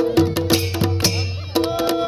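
Pahadi folk wedding music: drums struck with sticks in a quick, steady rhythm over a held drone, with a sustained melody note coming in near the end.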